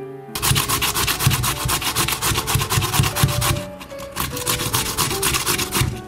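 Raw potato being grated on a stainless-steel box grater: rapid, even rasping strokes with a brief pause a little past halfway.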